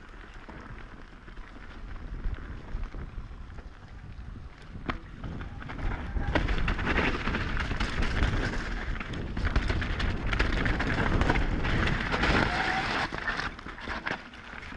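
Mountain bike descending a wet, muddy trail: tyres rolling through mud and over roots, with short knocks and rattles from the bike and wind rumbling on the camera microphone. It gets louder and busier about six seconds in.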